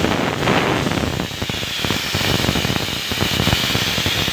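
Pressure cooker letting off steam through its whistle: a loud, steady hiss that begins suddenly, the sign that the dal inside is cooking under pressure.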